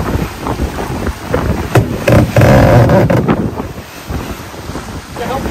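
Wind buffeting the microphone and water rushing past a sailing yacht under way, with scattered knocks and a louder burst lasting about a second, a little over two seconds in.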